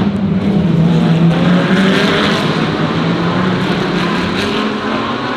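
GT3 race car engines running, with one engine note dipping slightly in pitch, holding steady, and then rising again near the end.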